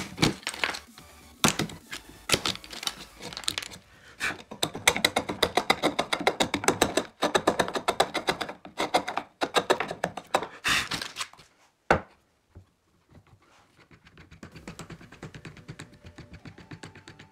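Hand-tool work on wood: scattered knocks, then a dense run of rapid taps and clicks, then one sharp knock, followed by fainter ticking.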